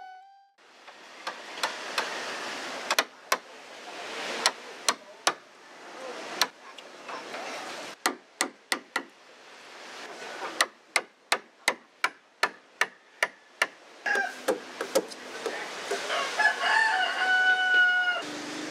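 Sharp strikes of a hand tool biting into hardwood as a canoe part is carved, irregular at first, then a quick run of about three blows a second. Near the end a rooster crows.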